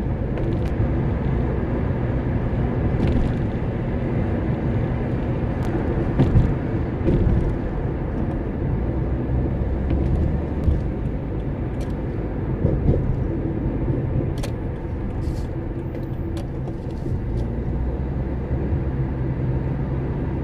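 A car driving, heard from inside the cabin: a steady low rumble of engine and tyre noise, with occasional light clicks and knocks.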